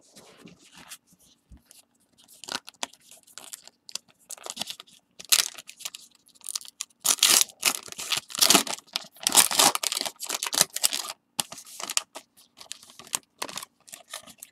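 A baseball card pack wrapper being torn open and crinkled, with bursts of rustling and tearing that grow busiest and loudest from about halfway through.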